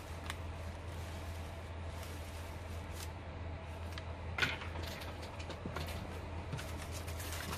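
Sheets of ironed eco-dyed paper being handled, with faint scattered rustles and one louder handling sound about four and a half seconds in, over a steady low hum.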